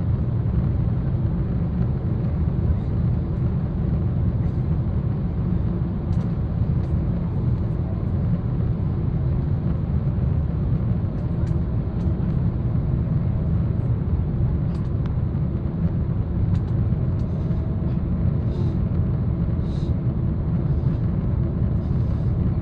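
Cabin noise inside a Boeing 777-300ER in flight: a steady low rumble of its GE90 engines and the airflow over the fuselage.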